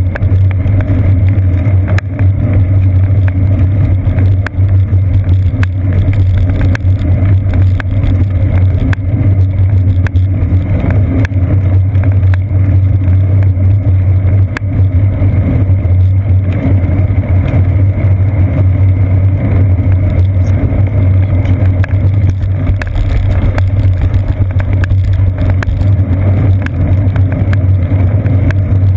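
Steady low rumble of a bicycle ride on wet pavement, picked up through a seat-post-mounted GoPro Hero 2: road and tyre vibration with wind noise, broken by scattered sharp clicks.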